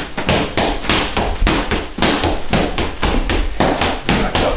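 Boxing gloves striking a focus mitt in a fast run of slapping punches, about five a second.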